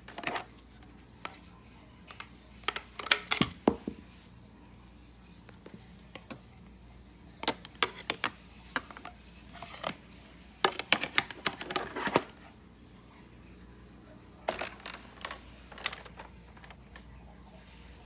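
Handling noise around a Hoover WindTunnel upright vacuum that is switched off: scattered clusters of short clicks, taps and light plastic knocks as its hose and parts are touched and the phone is moved about it, over a low steady hum.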